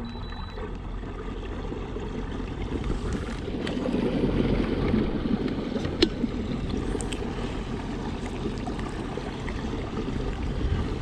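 Water washing and lapping along the hull of a motor-kayak moving under its electric bow trolling motor, a steady low wash that swells a little midway. A single sharp click about six seconds in.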